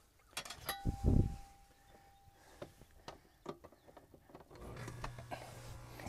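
Clicks and a dull thump about a second in as the air conditioner's outdoor power disconnect is closed, then, a little over a second before the end, the condenser unit powers up with a steady low hum and rush as the newly replaced contactor lets the compressor and fan run.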